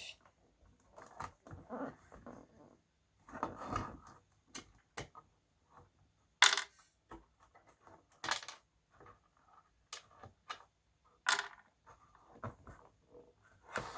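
Irregular clicks, taps and scraping of hands and a tool working at a vintage radio's glued-in speaker, with three sharper, louder clicks about six and a half, eight and eleven seconds in.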